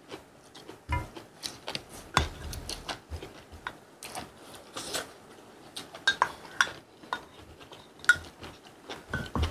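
Spoon and chopsticks clicking and scraping against small ceramic rice bowls, with the mouth sounds of chewing and slurping food. There are scattered sharp clicks, about one or two a second.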